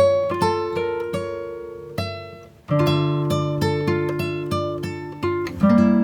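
Acoustic guitar music: plucked notes over a bass line, with a brief pause about two and a half seconds in before the playing picks up again.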